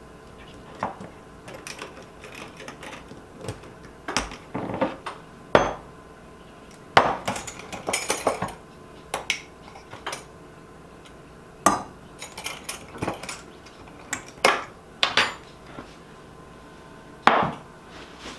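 Measuring spoons clinking and tapping against dishes and an enamelware mixing bowl as small amounts of salt, baking soda and baking powder are measured out. The sound is a scatter of light, irregular clinks and knocks, with a few sharper ones.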